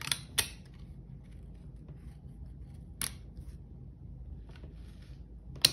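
Sharp metal clicks as a retainer is fitted onto a tractor clutch-pack shaft: two just after the start, one about three seconds in, and the loudest just before the end as the retainer goes in and seats.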